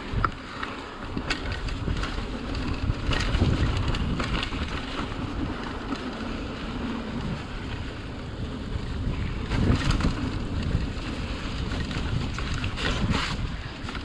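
Mountain bike rolling along a dirt trail: steady wind rushing over the microphone and tyre noise on the packed dirt, with a few sharp clicks and rattles from the bike over bumps.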